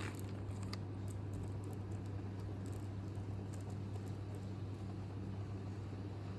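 Low steady hum with a few faint light ticks in the first second.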